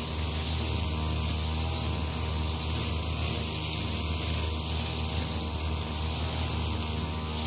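STIHL FR3001 backpack brushcutter with a nylon line head running steadily at cutting speed while trimming tall grass, its engine note holding an even pitch.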